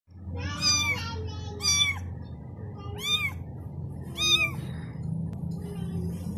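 Young kitten meowing: four high-pitched, arching calls about a second apart, over a steady low hum.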